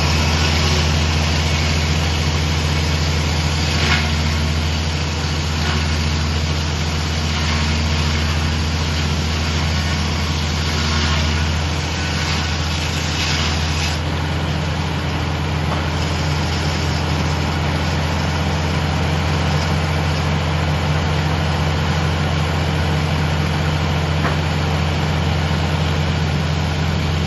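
A sawmill's engine running steadily as a loud, even drone, with a few brief higher hissing swells in the first half.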